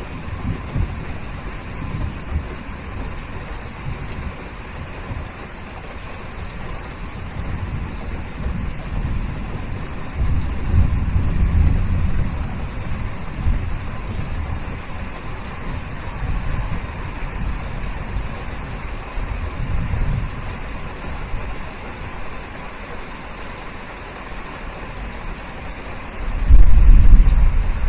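Steady rain falling, an even hiss throughout. Deep low rumbles swell under it twice: once around the middle and louder near the end.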